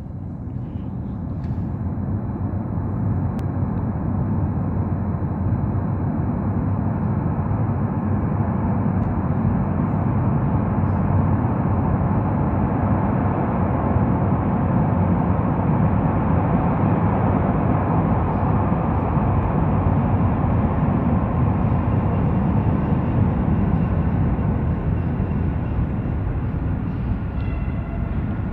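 Metro vehicle approaching through the tunnel toward the station: a steady, loud rumble that swells in over the first couple of seconds and then holds, with faint high tones near the end.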